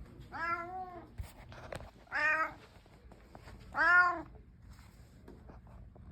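Domestic cat meowing three times, about a second and a half apart. Each meow rises and falls in pitch.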